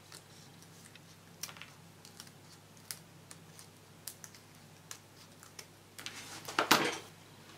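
Small scissors snipping through thin wafer paper, trimming off the ends of woven strips: sharp single snips about once a second. About six seconds in comes a louder rustle lasting about a second.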